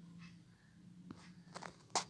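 Faint kitchen handling noise: a few soft clicks and one sharper click near the end, over a low steady hum.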